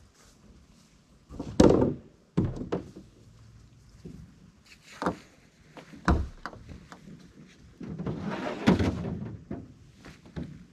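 Gear being handled in the bed of a pickup truck: a few hollow thunks and knocks, the loudest about one and a half seconds in. Then a longer scrape and rustle about eight seconds in, as a kayak paddle is pulled out.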